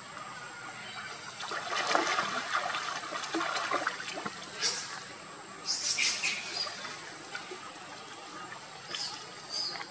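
Water splashing and sloshing as young macaques swim in a pool, in uneven bursts, with the loudest splashes about 2 and 6 seconds in and a few sharp high splashes near the end.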